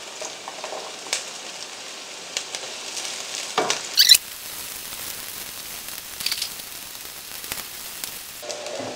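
Chopped onion and garlic sizzling steadily in hot oil in a nonstick frying pan, with a silicone spatula knocking against the pan a few times; the loudest knocks come a little before halfway.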